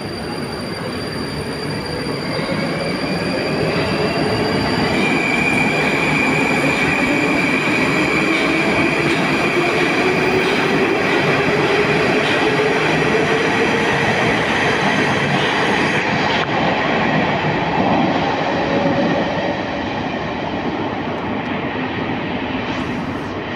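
Moskva-2020 metro train pulling out of a station platform. Its traction motors whine, rising in pitch as it picks up speed over the rumble of the wheels, then the sound fades away near the end as the train leaves.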